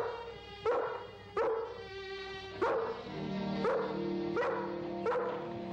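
Rough collie barking about seven times, short sharp barks less than a second apart, over background music whose low held notes come in about three seconds in.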